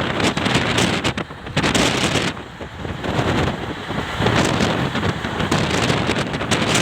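Shramjivi Superfast Express train running at speed, a loud rushing noise with heavy wind buffeting the microphone in uneven gusts.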